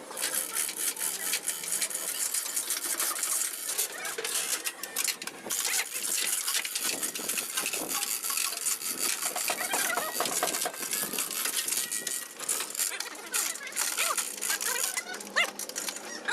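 Metal parts and tools clinking and rattling: a busy run of small, irregular knocks and clicks.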